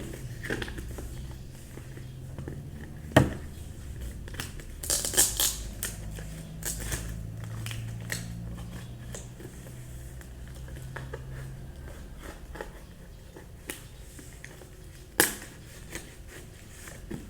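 A cardboard parcel being handled and opened: scattered sharp knocks and clicks with some rustling and crinkling of packaging, the loudest a knock about three seconds in, a cluster of them around five seconds and another near the end. A low steady hum runs underneath.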